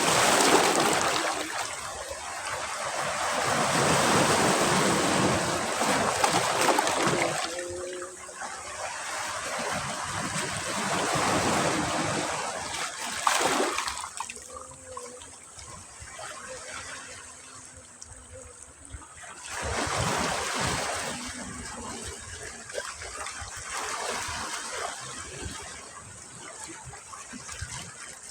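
Sea waves breaking and washing up a beach, swelling and fading in several surges with quieter hissing backwash between; the loudest surge comes at the start.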